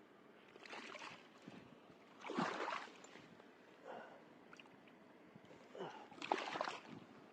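Water splashing and sloshing in four short bursts, the loudest at about two and a half and six and a half seconds in.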